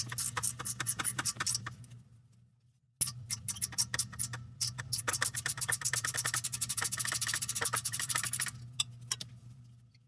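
Ratcheting wrench clicking rapidly as a loosened exhaust manifold bolt is backed out. The clicking stops for about a second after two seconds, then resumes faster and thins out near the end.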